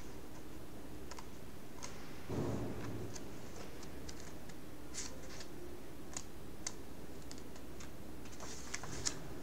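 Scattered light clicks and ticks, irregular and a second or so apart, over a steady low hum, with a soft dull thump a little over two seconds in and a quick cluster of clicks near the end.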